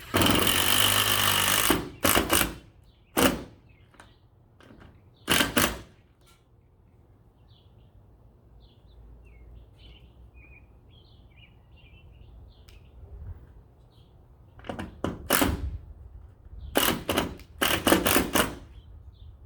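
Power driver running in bursts, driving self-tapping screws through body filler into a roof-rail mounting hole. There is one long run at the start and a few short pulses after it, then another cluster of short runs near the end as the screws snug down.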